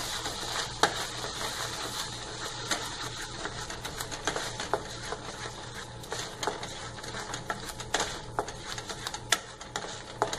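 Slotted wooden spatula scraping and knocking against a nonstick kadhai as thick, sticky milk-powder and condensed-milk dough is stirred without stopping: a fast, irregular run of clicks and scrapes over a low steady hum.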